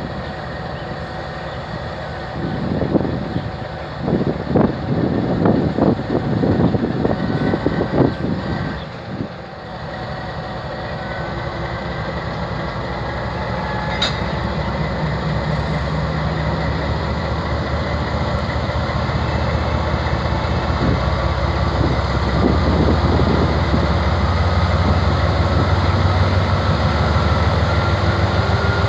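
GE 7FDL-12 twelve-cylinder diesel prime mover of a GEU-20 locomotive, its pitch and loudness climbing steadily through the second half as the engine notches up. In the first third there is a run of loud clanks and knocks from the train.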